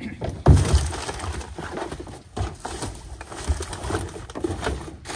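Plastic trash bags rustling and crinkling as they are pushed into a plastic wheeled recycling cart, with a thump about half a second in as the lid is flipped open and smaller knocks after it.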